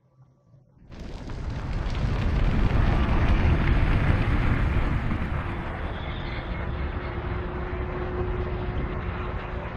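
Film sound effect of fire flaring up, heard through the overhead channels of the mix: a loud rushing, rumbling noise that starts suddenly about a second in, swells for a couple of seconds, then eases to a steady rush.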